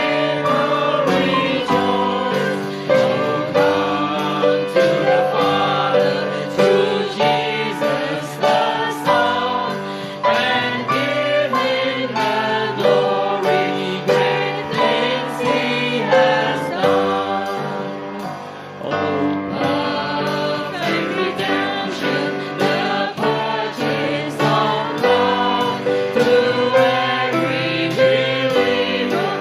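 Congregation and worship singers singing a hymn together, accompanied by piano and a steady drum beat, with a short lull between phrases about two-thirds through.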